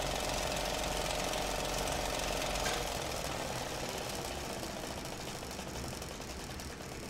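Steady mechanical rattle with a hum beneath it, a sound effect laid under the animated end card, slowly fading.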